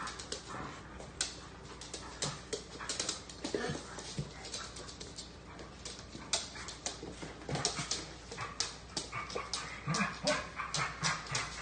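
A dog's claws and a child's bare feet clicking and patting on a hardwood floor as they move about together, with short dog whimpers now and then.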